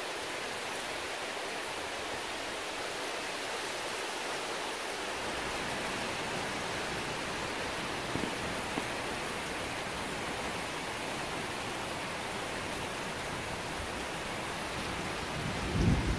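Steady rain falling, an even hiss, with a couple of faint ticks about halfway through and a brief low rumble near the end.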